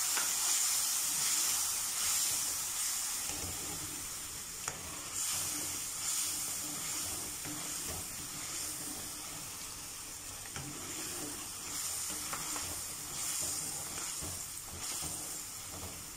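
Chilli-tomato sauce sizzling in a non-stick karahi over a high gas flame, with chicken stock just added, while a steel ladle stirs it and clicks against the pan now and then. The hiss slowly fades.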